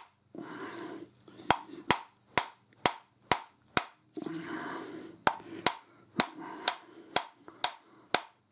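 Hammer blows on the spindle of a lathe live center, about two sharp strikes a second in two runs with a pause between, driving the spindle and bearings out of the housing.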